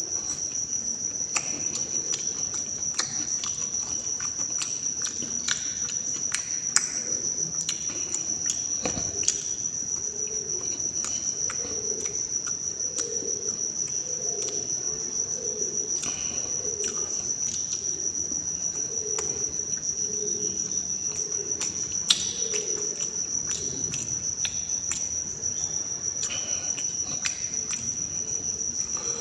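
A cricket's steady, high-pitched trill runs throughout. Over it come chewing and scattered small clicks of fingers on a steel plate as someone eats by hand.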